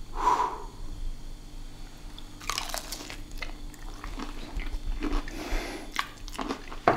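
Chewing a bite of crispy breaded fried chicken strip, the crust crunching in irregular bursts, loudest about two and a half seconds in.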